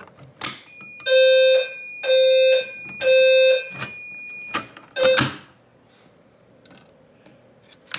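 Fire alarm horn sounding three short blasts, about one a second, in the temporal-3 evacuation pattern as a pull station is tripped in audible walk test. A steady higher tone runs under the blasts, and sharp mechanical clicks come just before and just after.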